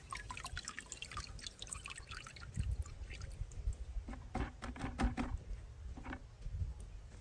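Hands sloshing a clump of red ants in a plastic bucket of water, with water running and dripping back into the bucket as the soaked clump is lifted out, heaviest about four to five seconds in.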